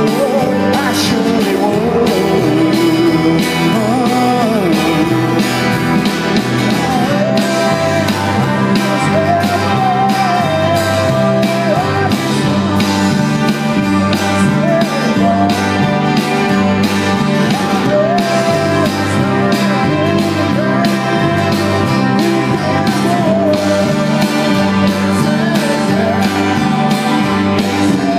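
Live band playing: electric bass, guitars and drum kit keeping a steady beat, with a man singing the lead.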